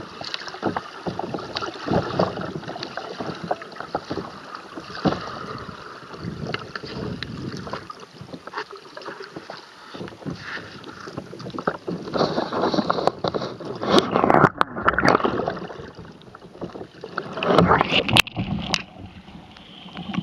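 Churning river water and bubbles heard through a camera held underwater on a capsized kayak: a muffled rush full of small crackles and pops. Louder splashing surges come in the second half as the boat is righted and the camera comes back up.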